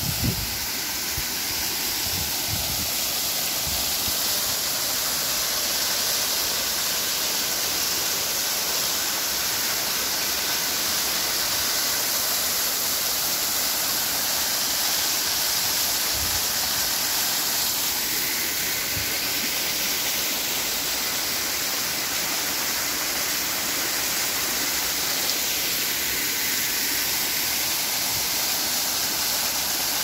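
Waterfall pouring over rocks into a shallow pool: a steady, unbroken rush of falling water, with a few faint low bumps.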